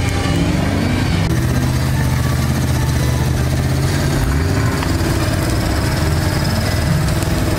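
Modified off-road 4x4's engine running hard as it climbs a steep slope. The engine note dips and then picks up again about halfway through.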